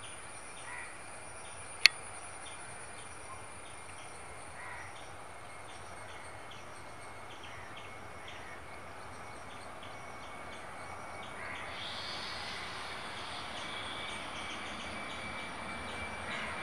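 Distant Boeing 737 MAX's CFM LEAP-1B jet engines: a faint steady rush, joined about twelve seconds in by a whine that slowly grows louder as the airliner moves toward take-off. A sharp click about two seconds in.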